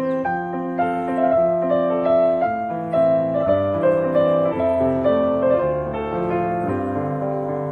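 Background piano music, notes played one after another in a gentle melody.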